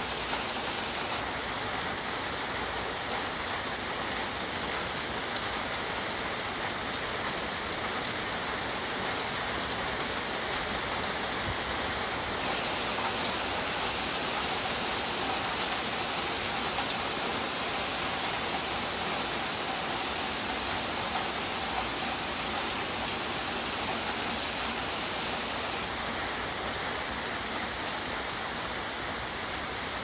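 Steady, even hiss of falling water, like rain.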